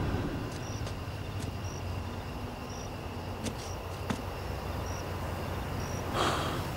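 Night-time ambience: a cricket chirping in short, high chirps about once a second over a low steady rumble, with a brief rush of noise near the end.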